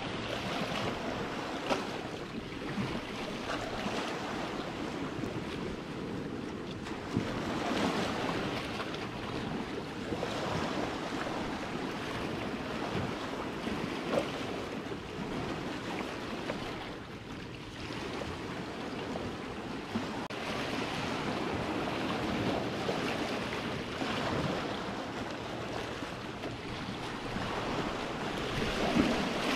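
Small sea waves washing in and breaking against shoreline rocks, the surf swelling and falling every few seconds with an occasional sharper splash. Wind rumbles on the microphone underneath.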